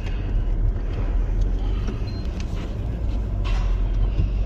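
A 2003 Chevrolet truck driving in second gear, its engine and drivetrain making a steady low rumble heard from inside the cab. The truck's transmission is failing.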